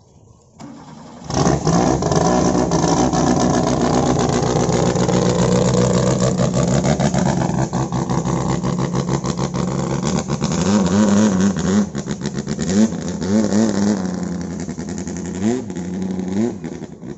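A longtail boat's converted car engine starting about a second in and then running loud at speed, with open exhaust. In the second half it is revved up and down several times.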